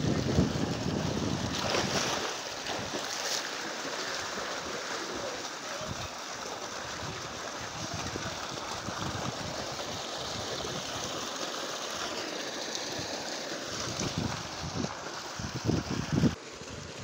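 Steady rush of water in a concrete water tank, with splashing as a man wades through it; louder in the first couple of seconds, with a few muffled bumps near the end.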